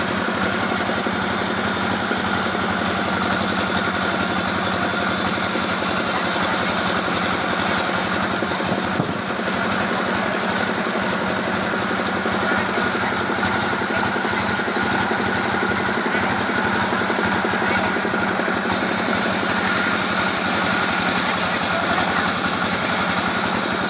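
Sawmill saw running steadily while cutting a teak log, with an engine driving it.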